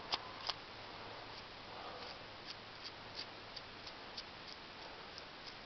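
Faint, scattered small metallic clicks and ticks from a Whitney No. 5 Jr hand punch being handled with a small tool while its punch and die are changed, with two slightly louder clicks just after the start.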